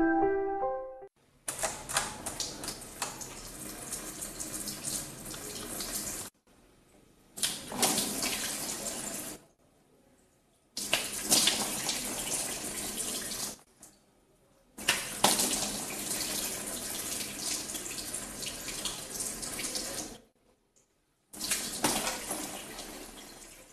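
Water running from a tap into a steel sink while a man scoops and splashes it onto his face. It is heard in five stretches, each starting and stopping abruptly, with short silences between.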